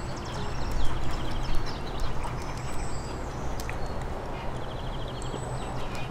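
Outdoor ambience: birds chirping, with short rapid trills and brief high whistled notes, over a steady low hum and background noise.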